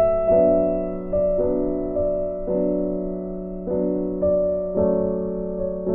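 Background music: slow, soft piano, with a new note or chord struck about once or twice a second and each left to ring and fade.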